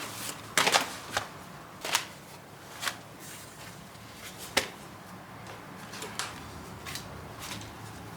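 Kitchen handling sounds: irregular light clicks and knocks of utensils and dishes, the sharpest a little under a second in and again past halfway, over a low steady hum.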